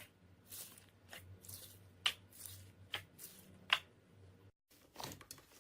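Slime being squeezed and pressed by hand: a string of soft sticky crackles with a few sharp pops, over a faint steady low hum. The sound cuts out briefly about four and a half seconds in.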